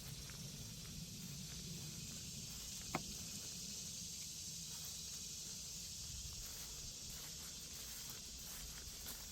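Steady high-pitched outdoor hiss over a low rumble, with one sharp click about three seconds in.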